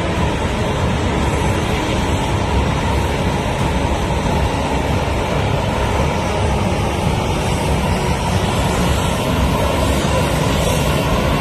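Jet engines of a taxiing Boeing 737 airliner: a steady, loud rumbling hiss that holds at an even level throughout.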